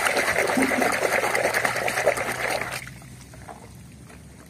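A hand swishing a toy through a plastic basin of muddy water, with sloshing and splashing that stops suddenly about three seconds in, leaving faint trickling and drips.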